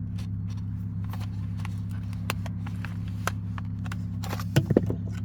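Plastic clicks and knocks as the shifter assembly's black trim part is worked loose and pried out of the console, with a cluster of louder knocks near the end, over a steady low hum.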